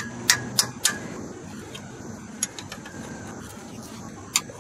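A small pocket hammer striking the end of a wrench on an AC compressor mounting bolt, used as a makeshift impact to break the bolt loose: three sharp metal-on-metal strikes in the first second, then a few fainter clinks and one more strike near the end.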